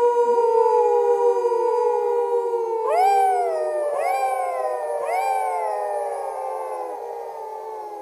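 Werewolf howling sound effect: several long, overlapping wolf-like howls, each sliding slowly down in pitch. About three, four and five seconds in, new howls swoop up and fall away again over the older ones.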